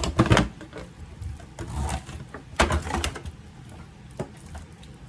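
Hands rubbing oil into raw pork ribs in a disposable aluminium foil pan, with irregular crinkles and knocks from the thin foil pan. The loudest come at the very start and about halfway through.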